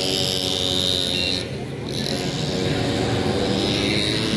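Busy night-market din: people's voices over a steady mixed hum, with high electronic tones from the rides. The sound dips briefly about one and a half seconds in.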